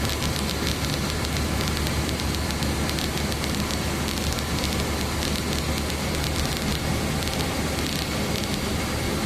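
Steady noise inside a car's cabin, with a fine crackling patter over a steady low rumble: the heater fan blowing and wet-weather road and rain noise.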